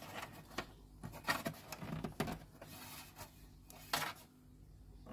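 Hard plastic clicking and scraping as a vented plastic side cover, its screws already out, is worked loose from a portable power station's plastic casing. There are irregular sharp clicks, a cluster between about one and two and a half seconds in and one more at about four seconds.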